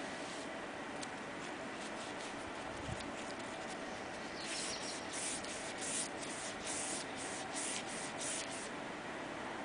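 Paintbrush bristles scrubbing paint onto a rough brick wall: short scratchy strokes, faint at first, then a louder run of about three strokes a second from about halfway in.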